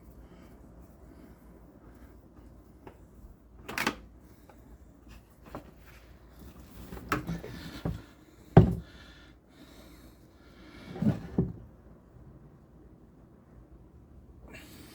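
A handful of scattered clunks and knocks as the wrench, its extension and the loosened oil filter are handled under the engine. One knock a little past halfway is the loudest.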